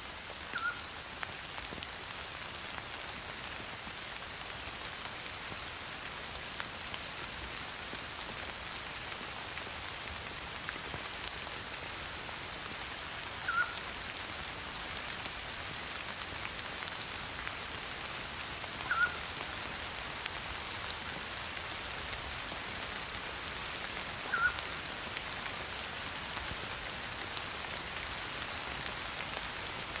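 Steady rain falling on leaves and grass, an even hiss. A short high tone stands out four times: once just after the start, then about every five seconds in the second half.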